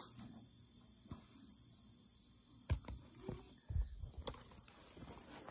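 Steady chorus of crickets chirping. Near the middle, a few short low knocks and bumps of the phone being handled.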